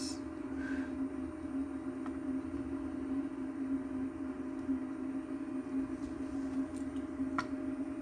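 Steady low hum of background room tone, with a faint click near the end.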